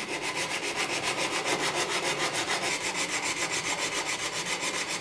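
Coarse 80-grit sandpaper wrapped round a wooden spoon handle rubbing back and forth in the curved coped cut of a wooden skirting board, a steady rasping in rapid, even strokes. It is hand-sanding to fine-tune the scribed profile of an internal corner piece.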